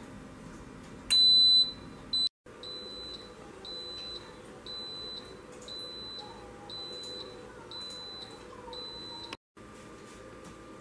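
Instant Pot IP-DUO electric pressure cooker beeping. One loud, long high beep is followed by a run of short beeps at about one and a half a second. It signals that the pressure-cook timer has run out and the cooker has switched to keep-warm.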